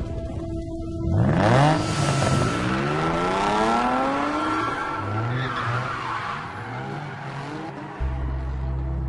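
Nissan 350Z sports car engine revving hard, rising in pitch as it accelerates, with tyres squealing as the car slides. Lighter revs follow, and a low steady music drone comes in near the end.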